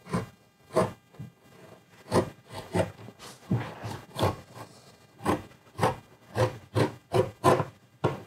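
Stanley knife blade scoring a melamine tabletop: a repeated rasping scrape, about two strokes a second, as the blade is drawn back and forth to cut through the melamine.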